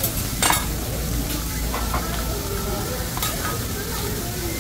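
Food sizzling on a hibachi steakhouse's flat-top griddle, with a few sharp clicks, the loudest about half a second in.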